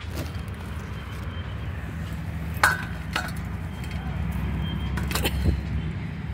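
Tomatoes set by hand into a stainless steel plate: a few sharp clinks and knocks, two about half a second apart near the middle and two more a little before the end. Under them runs a steady low rumble.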